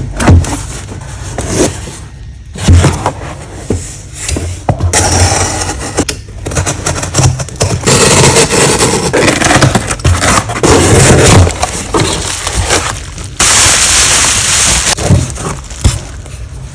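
Close-miked unboxing of an iPhone 17 Pro box: irregular scraping, crinkling and tearing of the packaging and cardboard as it is handled and opened. After about two-thirds comes a steady hissing stretch of about two seconds.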